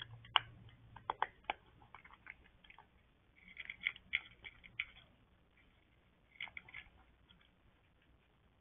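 Cat eating from a bowl: sharp crunching clicks of chewing, coming in three bursts with quieter gaps between.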